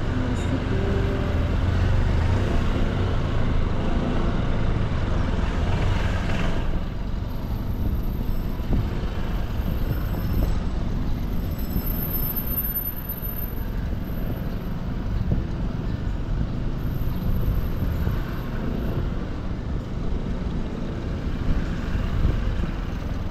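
Motorcycle being ridden slowly in traffic, heard from the rider's own position: its engine running under a steady low rumble of wind and road noise on the bike-mounted microphone.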